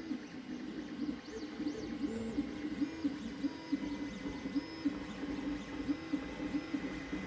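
Creality CR-X 3D printer printing, its stepper motors singing in short steady tones that jump in pitch again and again as the print head moves, over a faint steady hum.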